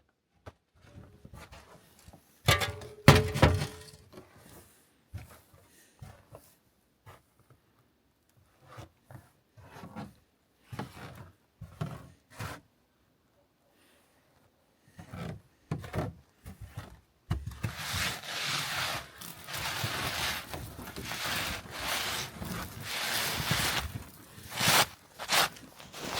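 Scattered wooden knocks and rubbing from things being handled, with a louder clatter about three seconds in. From about two-thirds of the way through, a steady rustling and crunching takes over, with a few louder scuffs.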